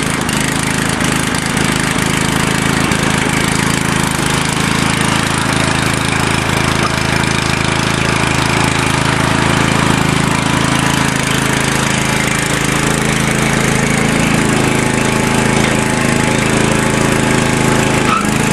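A brand-new lawn tractor engine running steadily at a fast idle, just after its first start.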